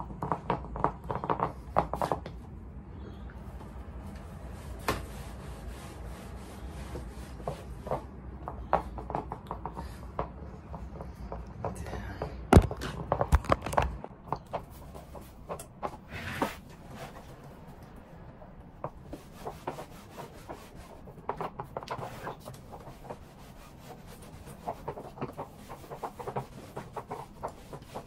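Handling noise from a phone being held and moved: rubbing with many sharp knocks and clicks over a low rumble, which stops abruptly about halfway through. Scattered light clicks and rustles follow.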